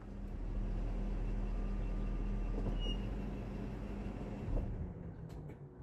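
A motor vehicle's engine running as a low, steady rumble that swells over the first second, holds, then fades away, with a single knock about four and a half seconds in.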